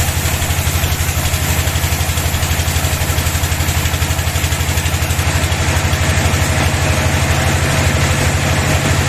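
Sawmill bandsaw machinery running, with the fast, even pulse of its drive engine. About five seconds in, a higher hiss grows louder.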